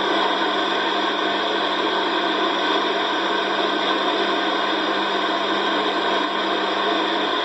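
CB radio receiver putting out steady static hiss on an open channel, with a faint low hum underneath.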